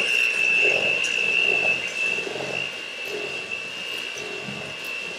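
Electric hand mixer running with a steady high whine, its beaters churning batter in a stainless steel bowl. It is louder for the first two seconds, then settles a little quieter.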